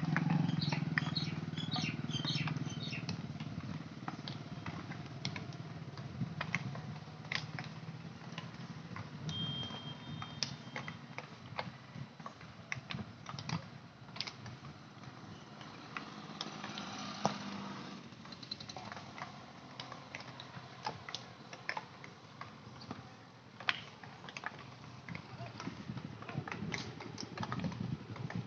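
Field hockey sticks striking balls, heard from across the pitch as scattered, irregular sharp clacks. A low hum runs under them for the first few seconds and comes back faintly about two-thirds of the way through.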